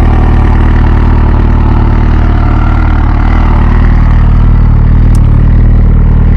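A 2006 MV Agusta F4 CC's 1078 cc inline-four idling steadily through its under-seat exhaust, loud and even with no revs.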